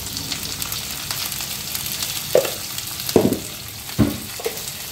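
Drumstick (murungakkai) pieces and sliced shallots sizzling in oil in a kadai: a steady frying hiss, with a few soft knocks in the second half.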